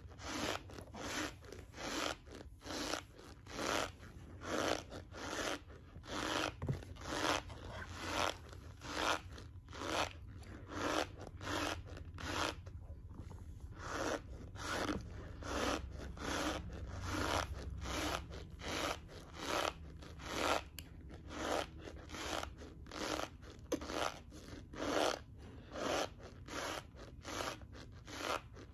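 Raw cornstarch being chewed close to the microphone, a steady run of chews at about two a second.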